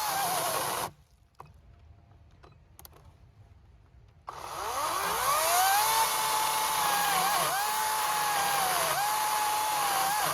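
Ego 18-inch cordless battery chainsaw cutting into the end grain of dry oak. Its electric motor whine dips in pitch as the chain loads up in the cut. About a second in the saw stops for a few seconds, then spins back up with a rising whine and goes on cutting.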